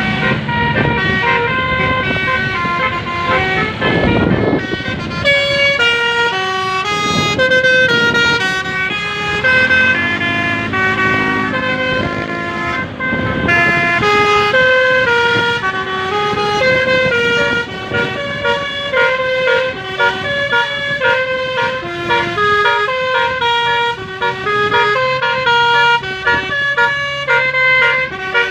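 Telolet basuri musical air horn playing a fast melody, stepping quickly from note to note without pause.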